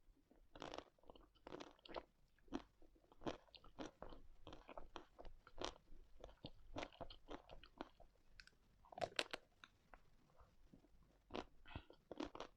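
Close-miked eating of ice cream: irregular bites and chewing, a string of short sharp crackles, with a denser cluster about nine seconds in.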